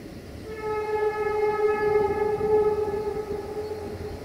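Train horn sounding one long, steady blast of a single note, starting about half a second in and fading near the end. Beneath it is the rumble of the passing train.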